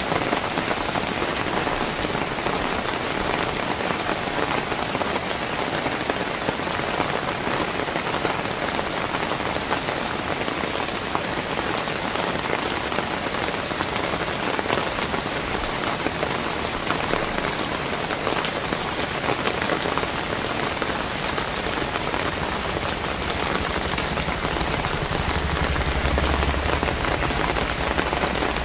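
Steady rain falling, a dense even hiss of countless drops, with a low rumble swelling briefly near the end.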